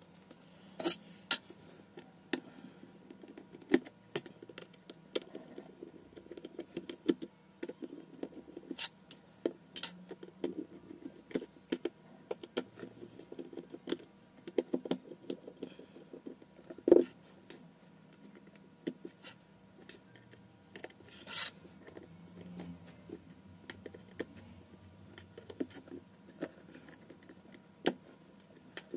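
Small repair tools and parts clicking, tapping and scraping on an opened phone's frame and the work mat in irregular sharp ticks, denser in places, with one louder knock about 17 seconds in.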